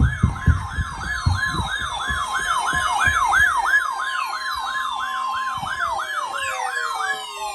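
A siren yelping, its pitch sweeping up and down about three times a second, with irregular low thumps in the first couple of seconds. About six seconds in the yelp stops and several falling tones glide down.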